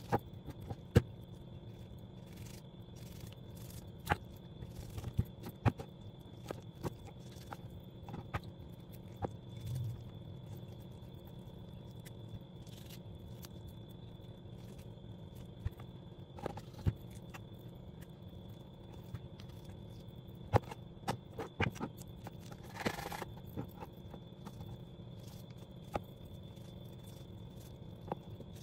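Chef's knife cutting and scraping raw bone-in beef on a wooden cutting board, with scattered sharp taps of the blade against the board over a steady background hum.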